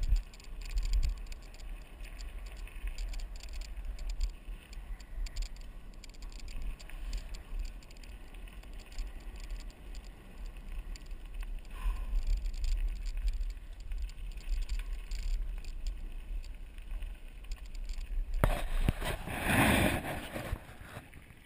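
Mountain bike riding fast down a dirt and gravel track, heard from a bike-mounted action camera: wind buffeting the microphone, with the rattle and crunch of the tyres and bike over the rough ground. A louder rushing noise comes in near the end.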